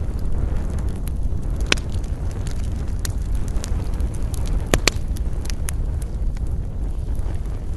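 Wood campfire crackling, with scattered sharp pops, the loudest a quick pair near the end, over a steady low rumble of wind.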